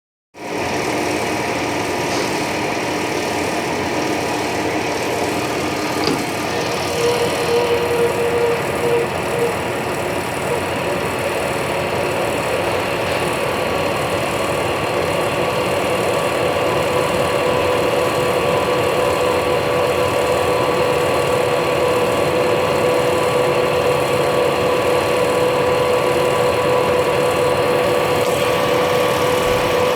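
Metal lathe running while a 1-inch high-speed-steel boring bar, overhanging 6.5 inches, takes a 0.125-inch-deep cut in a bore: a steady mechanical running sound with a pitched ring. A higher-pitched tone comes in briefly a few seconds in, and the ring grows steadily stronger through the second half.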